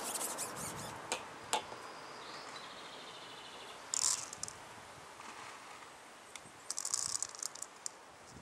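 Light clicks and short bursts of rattling from fishing tackle handled in the lap, in clusters near the start, about four seconds in and about seven seconds in. A faint chirp, likely a bird, sounds about two and a half seconds in.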